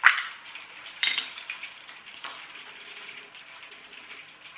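Black plastic case of a lamp touch-sensor module pried open by hand: a sharp crack right at the start, a second crack about a second in, and a fainter click a little after two seconds as the cover comes off the circuit board.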